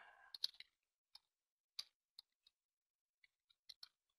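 Faint computer-keyboard keystrokes: about ten soft, irregularly spaced clicks as an address is typed in, otherwise near silence.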